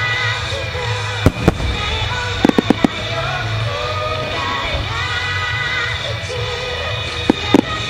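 Firework shells bursting in sharp reports over a loud rock song with singing: two bursts about a second in, a quick run of four or five around two and a half seconds in, and two more near the end.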